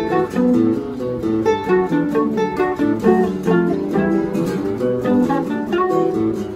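Bandolim and seven-string guitar playing a choro duet: the bandolim picks a quick melody of short notes over the guitar's plucked bass notes and chords.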